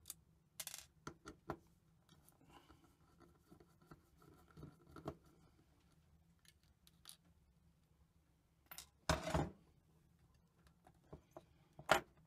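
Small metallic clicks and scrapes of a Torx screwdriver turning out screws from a hard drive's head assembly and of the drive's metal parts being handled, with a louder knock about nine seconds in.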